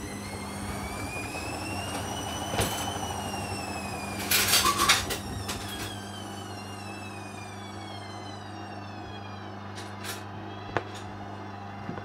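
Hoover Dynamic washing machine's drum motor whining up in pitch as it tries to spin, then winding down slowly from about three seconds in, over a steady low hum. A short loud rush of noise comes about four seconds in and a few sharp clicks near the end. The spin fails because the load is badly unbalanced and suds-locked.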